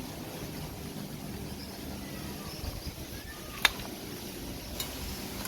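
Steady low outdoor background noise with a single sharp click or knock about two-thirds of the way through, and a fainter click about a second later.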